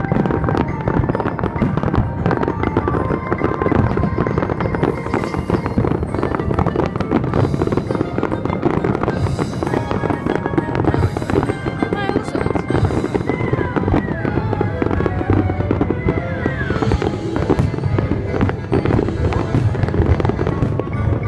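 Fireworks display: a dense, continuous barrage of crackling and popping from many shells and fountains bursting, mixed with loud show music.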